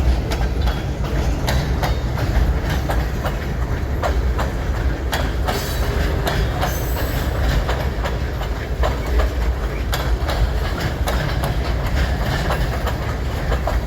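Freight train of empty center-beam flatcars rolling past, the wheels clacking rhythmically over the rail joints over a steady low rumble.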